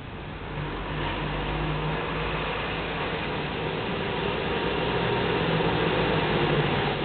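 A motor vehicle's engine running close by, with a low hum, growing louder about a second in and again a little later.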